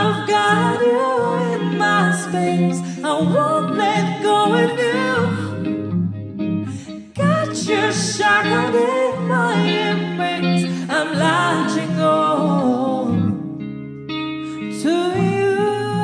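A woman singing a slow melodic line into a microphone, accompanied by a Telecaster-style electric guitar. The voice comes in phrases, breaking briefly about seven seconds in and again near the end while the guitar carries on.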